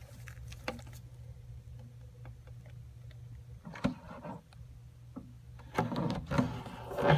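Savannah monitor thrashing a rodent held in its jaws on loose substrate: scattered scratches and rustles, a sharp scuffle about four seconds in and a longer, louder bout of scuffling near the end, over a steady low hum.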